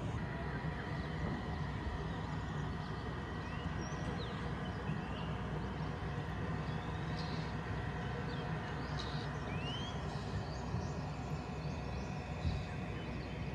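Outdoor forest ambience: a steady low rumble with a few short, rising bird chirps.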